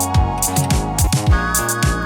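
Background music with a steady beat: an electronic funk-style track with a punchy bass drum and hi-hats.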